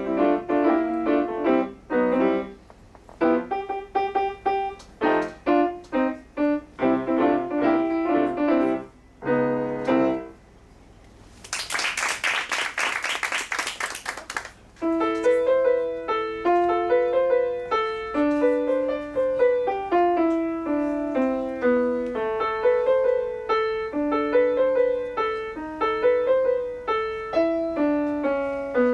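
Solo piano playing a fast, dense passage that breaks off about a third of the way in, followed by about three seconds of loud, even noise. The piano then resumes with a steadier, repeating melody over a moving lower line.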